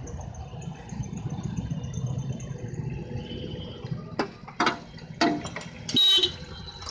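A vehicle engine idles with a steady low rumble. It is cut by a few sharp clacks past the middle and a brief loud burst near the end.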